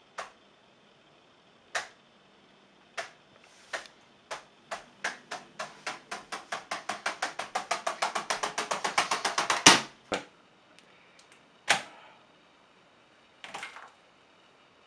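A run of sharp clicks. At first they come singly, a second or so apart. Then they speed up to about seven a second, growing louder, and end in one loud click about ten seconds in, followed by a few scattered clicks.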